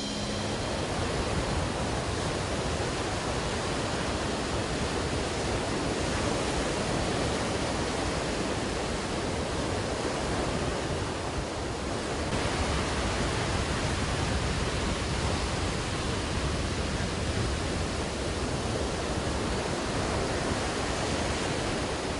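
A steady, even hiss spread across all pitches, with no tones, beat or voice in it.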